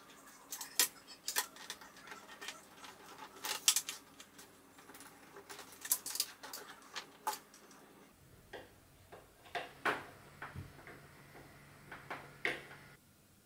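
Irregular clicks and taps of wires, connectors and plastic parts being handled during wiring work inside a plastic electrical enclosure, with a screwdriver at a terminal block near the end, over a faint steady hum. The sounds stop abruptly near the end.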